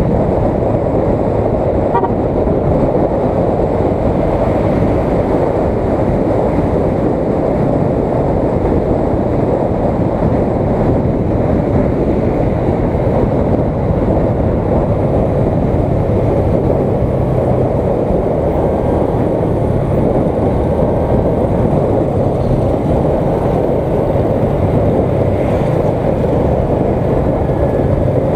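Motorcycle riding at road speed, heard from a helmet-mounted camera: a steady, dense rumble of engine and wind noise, with no sudden events.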